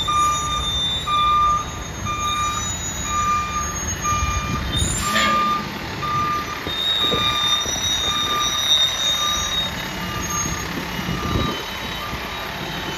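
Fire rescue truck's reversing alarm beeping at an even pace as the truck backs up, over the low rumble of its engine. A short hiss cuts in about five seconds in.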